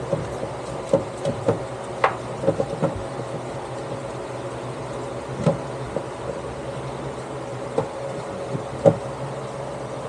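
Hands scrubbing inside a top-loading washing machine tub, giving scattered knocks and bumps against the tub, over a steady background hum.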